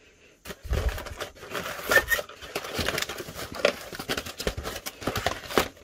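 Cardboard display box being handled and opened, its paper insert pulled out and the plastic-wrapped blind-bag packets inside rustling and crinkling, starting about half a second in.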